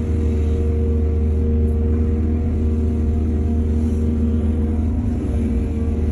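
Heavy diesel engine running steadily at constant speed: a deep, even drone.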